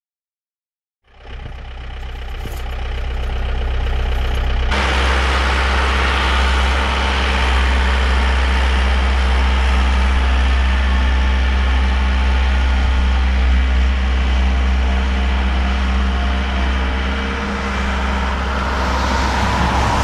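A vehicle engine running steadily with a deep hum. It fades in about a second in, and a broad hiss joins it abruptly about five seconds in.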